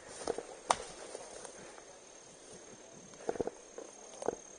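Paintball markers firing: a single sharp pop about a second in, a quick burst of three a little past halfway, and one more near the end.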